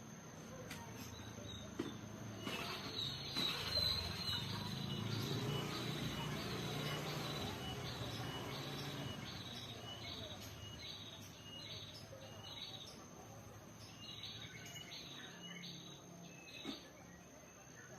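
Sunbird calling: a long run of short, high chirps, about two a second, over a low background rumble.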